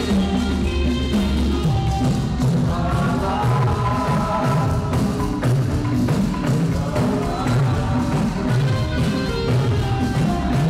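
Saxophone playing a melody live, with a backing track of bass and drums underneath.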